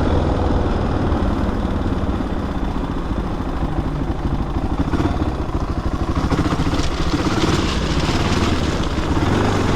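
Honda XR600R's single-cylinder four-stroke engine running at low revs as the dirt bike is ridden slowly over rocky ground, its firing pulses clearly separate in the middle.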